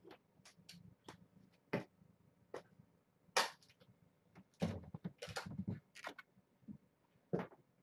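Kittens playing and scampering on a fleece blanket among toys: scattered soft taps, clicks and thumps, with a busier patch of scuffling about five seconds in.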